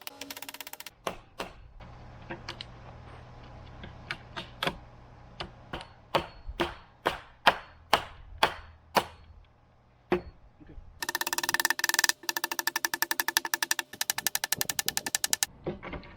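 A hammer striking repeatedly, single knocks at first, then a quick run of blows about two a second, as when driving nails into fence wood. Near the end a power tool runs in rapid, even pulses for about four seconds.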